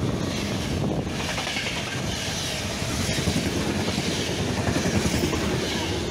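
RegioJet passenger train's coaches running past the platform: a steady, loud rumble and rush of wheels on the rails.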